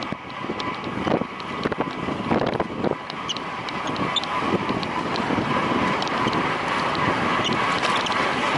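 Wind rushing over a rider-mounted camera's microphone on a road bicycle, getting slightly louder, with scattered short clicks and ticks.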